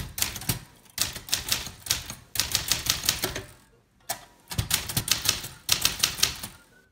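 Manual typewriter being typed on: runs of sharp typebar strikes against the platen, with a short pause a little past halfway.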